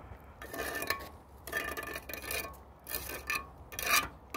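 Steel pointing trowel edge scraping along firm, freshly struck mortar joints in brickwork, trimming off the excess mortar so it falls away: five or six short scraping strokes, about one a second.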